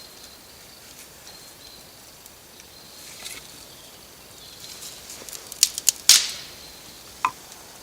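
Fire being lit for a dry-fuel tablet: two sharp clicks, then a short scraping hiss that fades quickly, then one more click near the end. A faint steady insect buzz runs behind.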